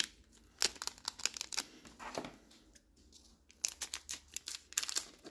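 Trading cards and their foil packaging being handled by hand: a series of short rustles, crinkles and taps.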